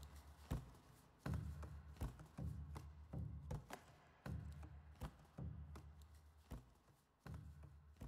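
Footsteps crunching through deep snow: uneven, faint steps, one or two a second, each a short crunch as the snow packs down.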